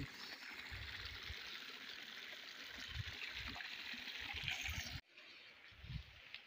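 Hot-spring water running and trickling over rock, a steady rush with a few low thumps, cutting off abruptly about five seconds in to a much quieter stretch.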